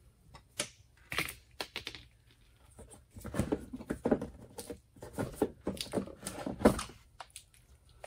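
A screwdriver clicks at the screws of a van's plastic fuel filler housing. Then comes a busier run of plastic-and-rubber clicks and scrapes as the housing is worked loose and pulled out, with one sharp knock near the end.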